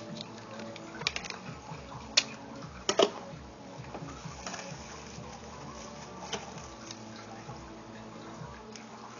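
Bubble wrap crinkling and rustling as it is folded and handled by hand, with scattered sharp crackles, the loudest about three seconds in.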